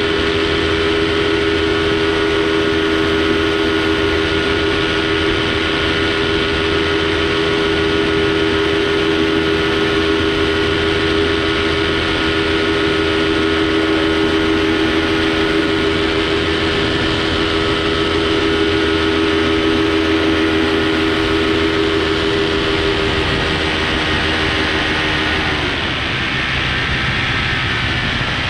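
Paramotor engine and propeller running steadily in flight, a constant droning note over wind noise. Near the end the engine note drops as it slows.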